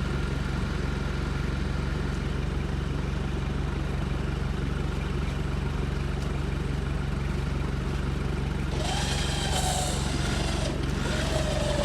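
Off-road 4x4 engine running steadily during a tow recovery in the woods. About nine seconds in, a burst of hissing noise comes in for roughly two seconds, with a wavering whine rising over the drone.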